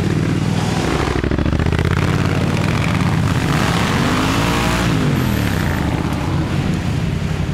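Triumph motorcycle engine running under way, rising in pitch and then falling back around the middle.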